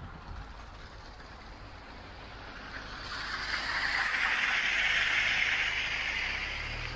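Floodwater pouring over a stone wall and splashing onto the road, a rushing hiss that swells about three seconds in as the car comes alongside and then eases. A car engine hums low underneath.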